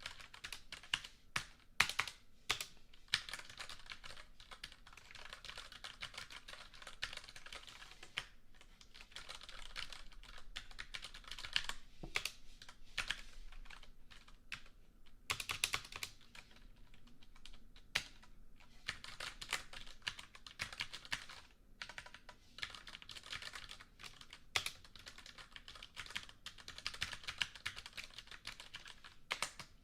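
Continuous typing on a computer keyboard: fast runs of key clicks broken by short pauses, with a few louder single key strikes.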